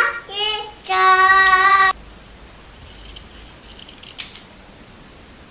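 A child singing long, held notes that cut off abruptly about two seconds in, followed by quiet room noise with a single faint click near four seconds.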